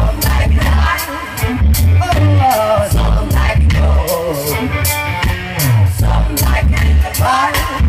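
Live reggae band playing: a lead singer's vocals over a heavy bass line, electric guitar and drums.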